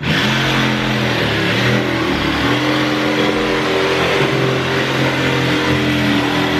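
Background music with sustained chords and a steady bass line, changing notes every second or two.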